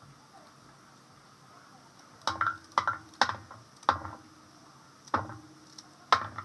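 Six sharp knocks of metal cookware, each with a brief metallic ring, coming at uneven intervals from about two seconds in.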